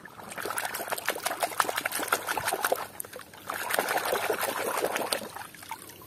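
Water splashing and sloshing as a hand scrubs a small toy truck under water in a basin. It comes in two spells with a short pause about halfway, then quieter dripping near the end.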